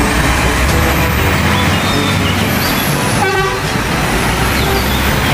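Truck engine running with a steady rumble, and a short horn toot about three seconds in.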